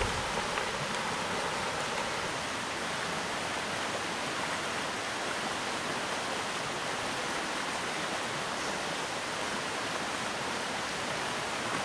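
Steady rush of a rocky trout stream, fast water running over rocks.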